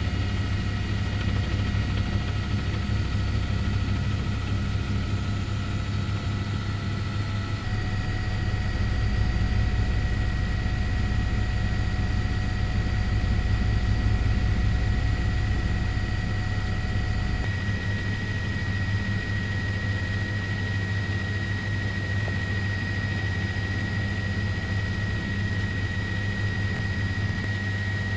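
Helicopter running steadily, a continuous low drone with a thin high whine above it; the sound shifts slightly about 8 and 17 seconds in.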